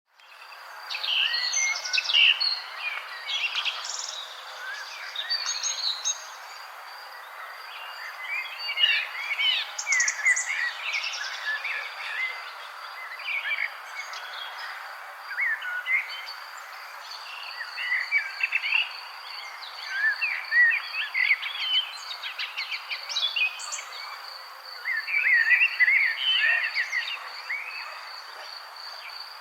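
Several songbirds singing and chirping in overlapping bouts of short, quick phrases. Under them runs a steady, high, rapidly pulsing trill.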